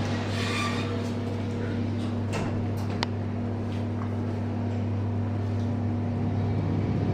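Steady low hum of a ThyssenKrupp lift car travelling between floors, with a faint click about three seconds in.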